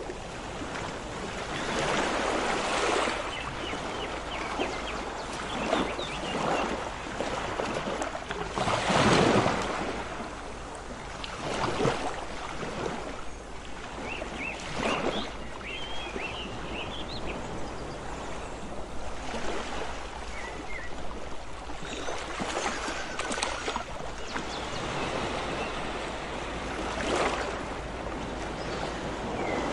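Sea waves breaking and washing up a beach, the surf surging and receding every few seconds.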